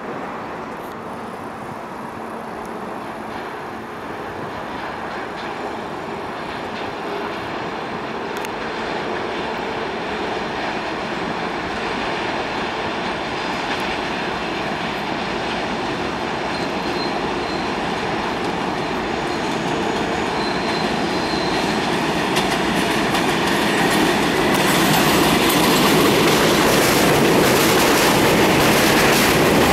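NYC Subway R142A train approaching and pulling into the station: the rumble and clatter of its wheels on the rails grow steadily louder. About 25 s in it reaches the platform and the noise jumps up with sharper wheel-and-rail clatter.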